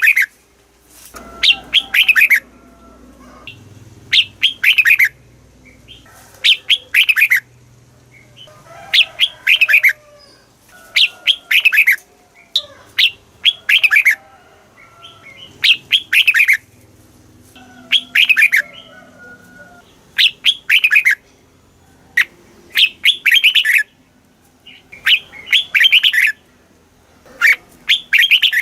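Red-whiskered bulbul singing: short bursts of a few quick, loud, falling whistled notes, repeated about every two seconds.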